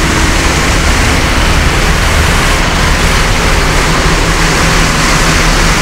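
Many bus diesel engines idling together in a ferry's enclosed vehicle deck: a loud, steady rumble with a low hum and a hiss of noise over it.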